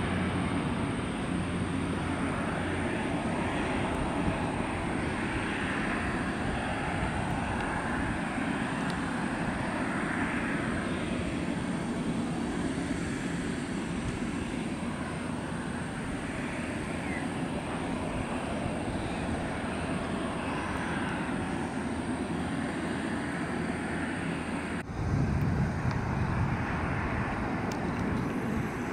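Dash 8 Q400 turboprop at takeoff power, a steady propeller-and-engine drone as it rolls and climbs away. Near the end it cuts abruptly to a Boeing 737 jet on approach, a deeper rumble.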